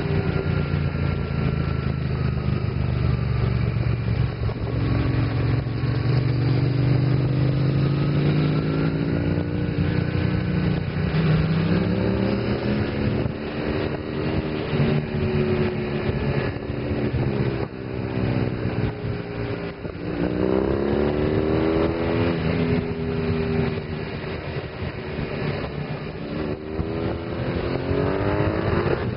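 BMW motorcycle engine running at road speed, its revs climbing and dropping several times as the bike accelerates out of bends and shifts gear, over steady rushing noise.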